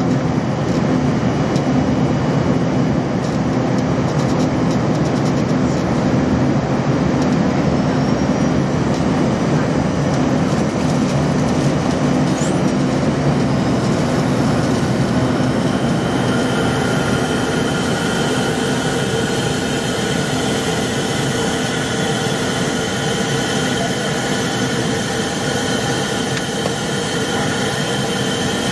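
Cabin noise inside an Embraer ERJ-145 regional jet climbing after takeoff: a steady rush of air and rear-mounted turbofan engine noise with a low hum. About halfway through, several steady whining tones come in over it.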